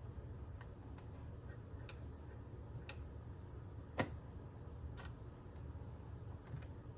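Faint irregular clicks and ticks from the opened cassette data recorder's mechanism over a steady low hum, with the loudest click about four seconds in. The gears are not meshing properly.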